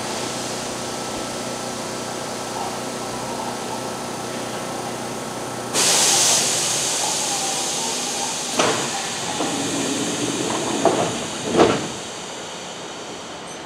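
Kintetsu electric train standing at a station platform: a steady hum, then a sudden loud hiss of compressed air about six seconds in that fades away, followed by a few short clunks.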